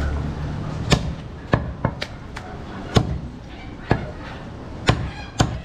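Butcher's cleaver chopping goat meat on a wooden chopping block: about nine sharp knocks at uneven intervals.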